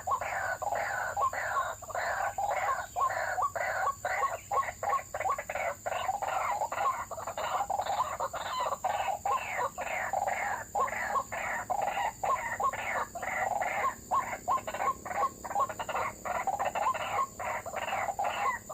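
White-breasted waterhen (ruak-ruak) calling, a rapid unbroken series of harsh repeated notes, roughly three a second.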